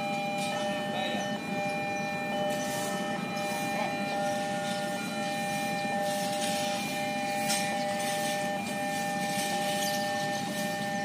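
Level-crossing warning alarm sounding steady electronic tones, signalling an approaching train, over a low steady rumble of traffic.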